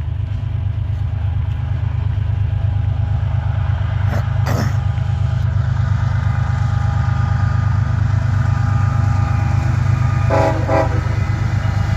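Diesel locomotives of a freight train approaching, their engines a deep steady rumble that grows louder, with a brief clank about four seconds in.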